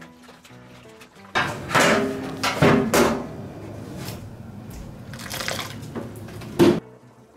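Water spraying in uneven surges onto washing-machine parts being rinsed. It starts abruptly about a second in and cuts off shortly before the end.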